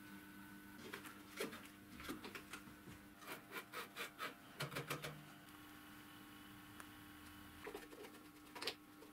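Light clicks and taps of hands handling the metal parts and clamping knobs of a homemade band saw, with a quicker run of about three clicks a second in the middle and a couple more near the end. A faint steady hum runs underneath.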